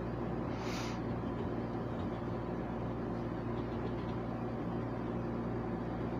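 A steady low hum, with one short scrape of a coin on a scratch-off ticket a little under a second in.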